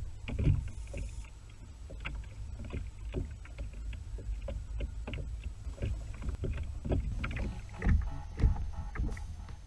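Water lapping and splashing against the plastic hull of a Hobie Pro Angler 12 fishing kayak, with irregular splashes and knocks, as a small hooked redfish is reeled up and splashes at the surface beside the kayak.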